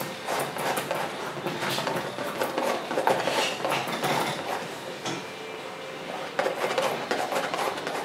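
Palette knife scraping and tapping against a palette while mixing oil paint: a run of short metallic scrapes and clicks.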